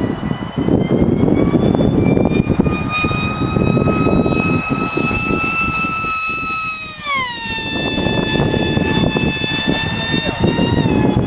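A 36-inch Lightning RC boat running at speed: a high, steady motor whine that climbs slightly in pitch, then falls sharply as the boat passes about seven seconds in. Under it is a steady rushing noise of wind and water.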